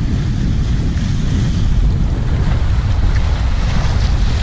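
Wind buffeting the microphone over surf washing across shoreline rocks: a steady rushing noise with a heavy low rumble.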